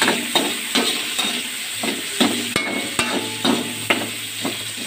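Metal spatula scraping and tapping against an aluminium wok, about two or three strokes a second, as garlic, onion and ginger are stir-fried in oil, over a steady sizzle.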